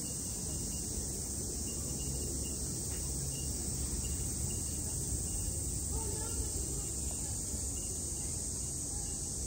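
Outdoor ambience: faint, indistinct voices of people mixed with a steady high hiss and a low rumble, with no distinct events.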